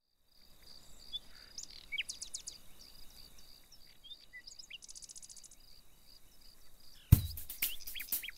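Birds chirping with short rising and falling calls and a quick run of ticks, over a steady high-pitched hum. About seven seconds in, music with a heavy drum beat starts loudly.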